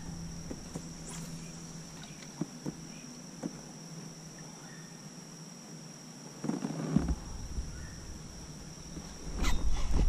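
Quiet stream-side ambience: a faint steady high whine under a few light clicks and knocks of fishing gear on a plastic kayak, with a brief louder scuffle about two thirds of the way through.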